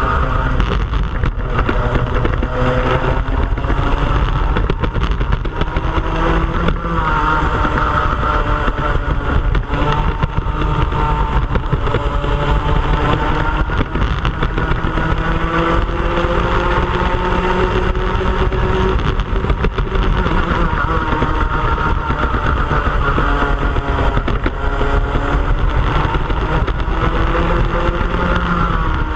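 Racing kart engine heard onboard at race pace, its pitch climbing along the straights and falling away into the corners several times, with other karts running just ahead.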